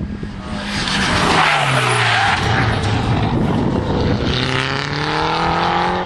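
Rally car at full stage pace, close by: the engine note drops as it brakes and shifts down, with a hiss of tyres sliding, then rises steadily as it accelerates away.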